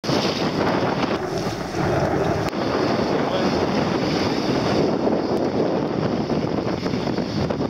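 Steady wind buffeting the microphone over the sound of choppy sea water around a sailing dinghy.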